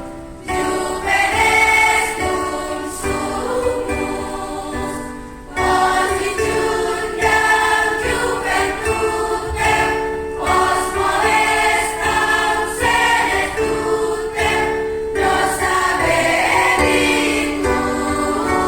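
A choir singing in harmony, in sustained phrases of about five seconds each, with a short break before each new phrase.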